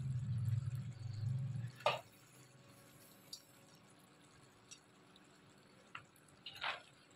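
Faint taps and soft thuds as boiled rice is tipped from a plastic bowl into a karahi, with one sharper tap about two seconds in and another near the end. A low hum sounds for the first couple of seconds.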